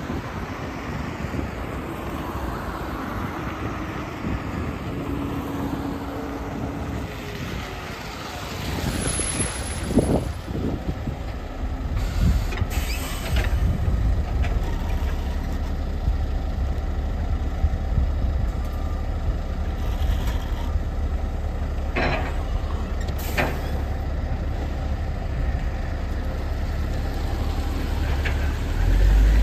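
LiAZ-5292 low-floor city bus drawing up close and idling with a deep, steady engine rumble. Short sharp air hisses come a few times, at about twelve seconds and twice more later on, and near the end the engine note swells as the bus pulls away.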